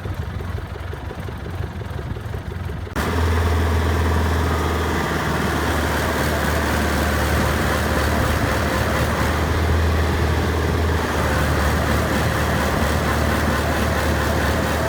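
Diesel engine of heavy farm machinery, a tractor or rice combine harvester, running steadily. About three seconds in the sound cuts abruptly to a louder, closer engine, which then runs on evenly.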